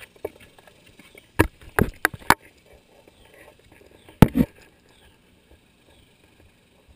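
Sharp knocks and bumps on a kayak: four in quick succession about a second and a half in, then a louder double knock about four seconds in.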